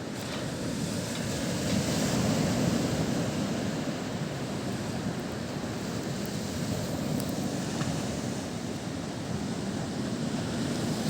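Mediterranean surf washing on the shore: a steady rushing of waves that swells about two seconds in and then eases.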